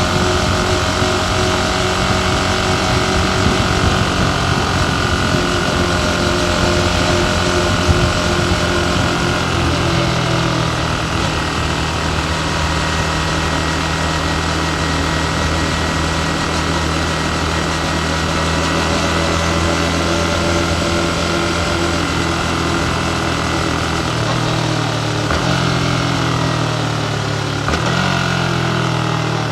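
Yamaha MT15's 155 cc single-cylinder engine running under way, heard with wind and road noise. Its note changes about ten seconds in and shifts again twice near the end.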